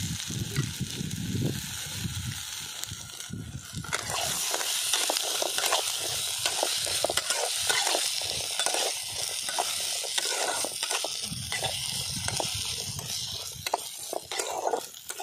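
Diced potatoes sizzling in hot ghee in a metal kadhai, with a steady hiss. From about four seconds in, a metal spatula scrapes and knocks against the pan in quick, repeated strokes as the potatoes are stirred.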